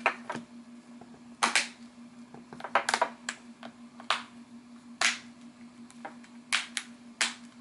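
Plastic snap-fit clips around the edge of a Samsung ATIV Smart PC Pro 700T tablet's back cover clicking into place as the cover is pressed on. There are about a dozen sharp snaps, roughly one a second, several of them coming in quick pairs.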